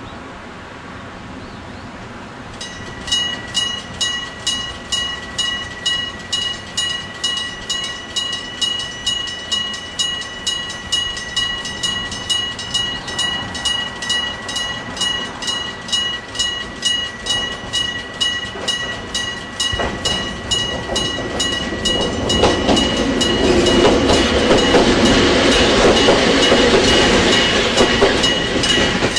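Japanese level-crossing electric bell (a mechanical striker on a gong) starts ringing about three seconds in, struck about twice a second over a steady ringing tone. Over the last several seconds a train's rumble builds up and becomes louder than the bell as the train reaches the crossing.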